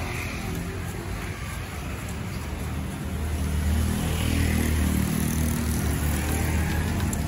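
Street traffic: a low engine rumble from passing road vehicles that grows louder about halfway through.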